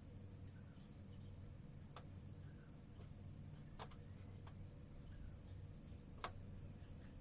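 Near silence with a low steady hum and a few faint bird chirps, broken by four sharp clicks, the loudest about six seconds in.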